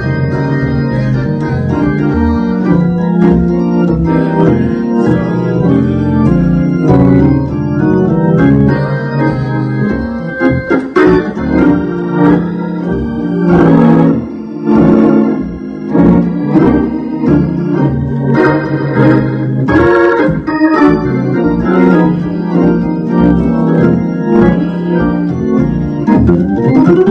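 Hammond organ playing a song with full held chords and a moving melody line on top, turning to shorter, clipped chords about ten seconds in.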